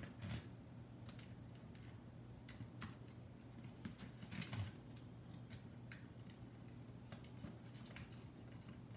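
Faint, scattered clicks and light taps of hands handling an FrSky X-Lite radio transmitter's plastic case and circuit board while working a stray wire free, over a steady low hum.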